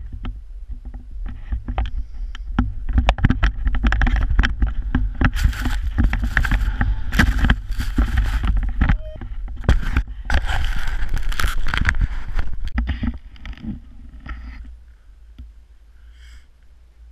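Rushing wind and powder snow spraying over a pole-mounted GoPro in its housing as the rider descends through deep snow, with many sharp knocks and rumbles from the housing and pole. The rushing is loudest in the middle, when snow spray covers the lens, and drops off over the last few seconds.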